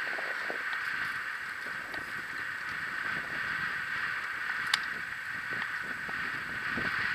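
Skateboard wheels rolling on rough asphalt: a steady rolling hiss, with one sharp click about two-thirds of the way through.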